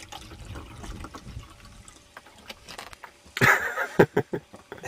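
Liquid being poured from a bottle, faint at first, then a loud burst of pouring about three and a half seconds in that stops abruptly.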